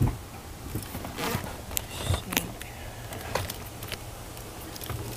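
Scattered clicks, taps and short rustles of car wiring being handled under the dashboard, over a steady low hum.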